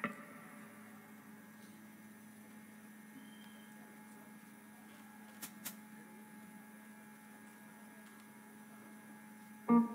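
Steady electrical hum from the stage sound system and amplifiers, with two faint clicks about five and a half seconds in. A loud instrument note comes in right at the end.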